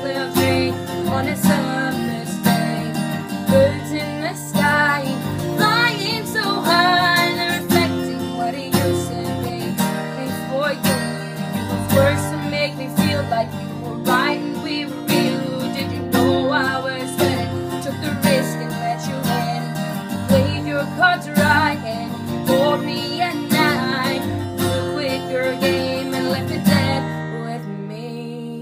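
Acoustic guitar strummed in a steady rhythm, with a woman's voice singing a melody over it.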